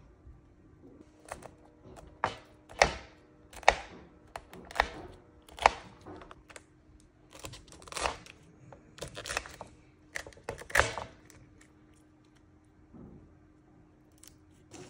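A metal fork and a silicone spatula scraping and knocking against a nonstick pan while breaking up soaked noodle blocks in cheese sauce. About a dozen sharp scrapes come in quick, irregular succession, then they die down after about eleven seconds.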